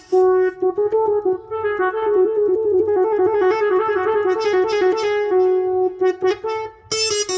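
Yamaha PSR-S970 arranger keyboard playing a single melodic line on one of its built-in voices, with quick runs of notes in the middle. A brighter, sharper sound comes in near the end.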